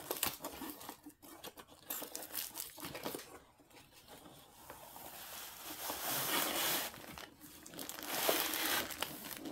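A cardboard diamond-painting kit box being opened by hand: packaging crinkling and rustling with some tape tearing, scattered crackles at first, quieter for a moment in the middle, then a longer, louder stretch of rustling.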